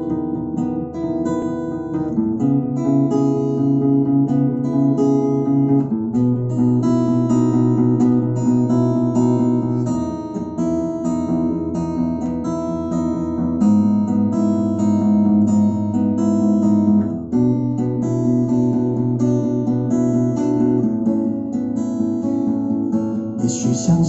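Acoustic guitar playing a slow instrumental introduction, picked and strummed chords that change every three or four seconds, ahead of the vocal entry.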